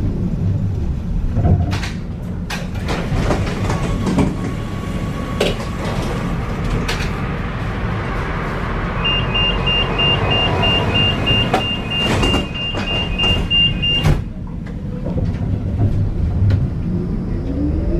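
Tram halted at a stop with scattered clunks and clicks of the doors, then a rapid door-closing warning beep for about five seconds. Near the end the traction motors' whine starts to rise as the tram pulls away.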